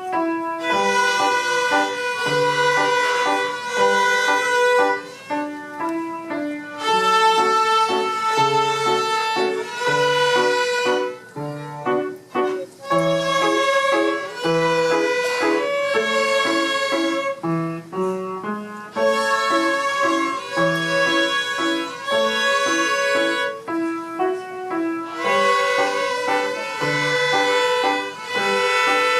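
A student viola section playing a simple tune with piano accompaniment, in phrases with short breaks between them.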